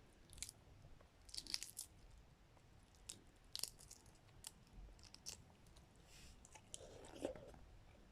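Chewing and soft crunching of an 18-day balot, a boiled fertilized duck egg with a well-formed embryo, eaten close to the microphone: faint, with a small click or crunch every second or so.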